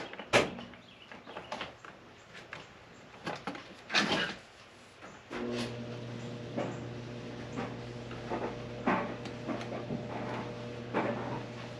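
Plastic Lego Technic pieces being handled and pressed together: scattered sharp clicks, the loudest just after the start, and a longer rattle about four seconds in. A steady low hum starts about five seconds in and continues.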